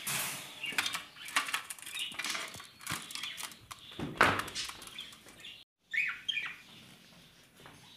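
Budgerigars fluttering their wings and scrabbling in irregular bursts as they are moved by hand from a wooden carrier box into a wire cage, with a few short chirps. The fluttering dies down in the last couple of seconds once the bird settles on the perch.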